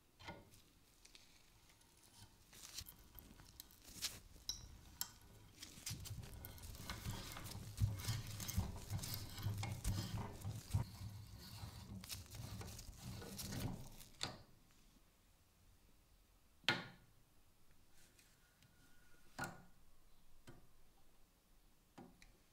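Spiral-flute tap turned by hand into an oiled steel bushing held in a vise, cutting threads: a rough scraping with many small clicks for about fourteen seconds. Then quieter, with a few separate sharp knocks.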